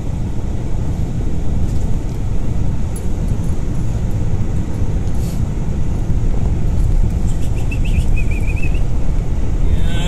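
Steady low rumble of a car driving, road and engine noise heard from inside the cabin.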